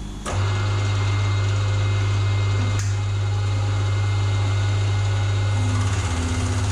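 Milling machine switched on about a third of a second in, its motor then running with a steady, even hum; one click near three seconds.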